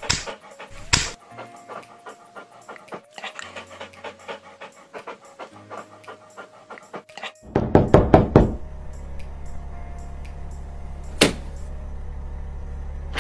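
A German Shepherd panting in quick short breaths. About seven seconds in, a second of loud rapid noises, then a steady low hum.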